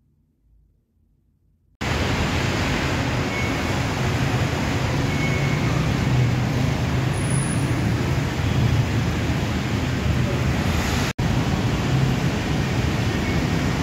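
Steady city street traffic din of passing cars, starting abruptly about two seconds in after near silence, with a momentary drop-out about eleven seconds in.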